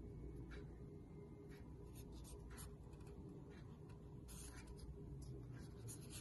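Faint handling noise from a handheld milk frother: scattered light clicks and rubbing as its plastic handle is turned in the fingers. The motor is not running.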